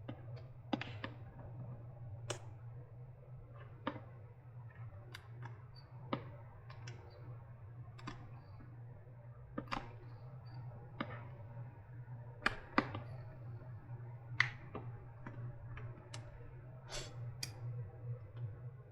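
Metal pry tool working under the silicone on a battery pack, giving irregular sharp clicks and ticks about once a second, over a steady low hum.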